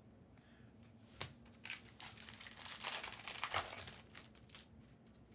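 A trading-card pack wrapper being torn open and crinkled, with a few sharp crackles about a second in. It is loudest and densest from about two to four seconds in.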